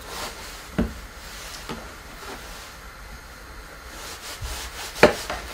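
Kitchen knife sawing through smoked meat on a plastic cutting board: soft rubbing strokes, with a few knocks of the blade on the board, the loudest about five seconds in.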